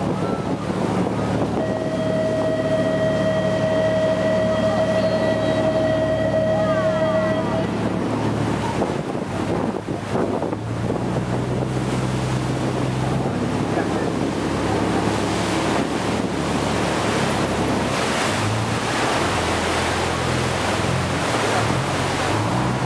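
Sightseeing boat's engine running through rough sea, with waves splashing against the hull and wind buffeting the microphone. A steady high-pitched tone sounds for about six seconds near the start. The engine's note shifts in the second half.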